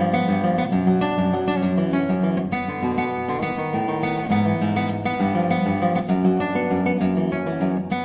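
Acoustic guitar music, plucked and strummed, playing continuously.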